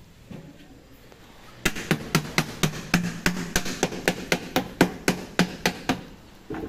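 A mallet striking a paint can lid about seventeen times in quick, even succession, roughly four blows a second, seating the lid before the can goes into the mixer, followed by one short knock near the end.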